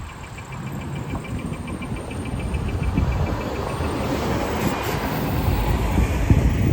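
Street traffic: a passing motor vehicle's engine and tyre rumble, swelling louder toward the end.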